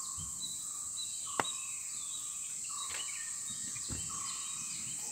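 Steady high-pitched insect chorus from the forest, with birds calling over it in short repeated phrases and one sharp click about a second and a half in.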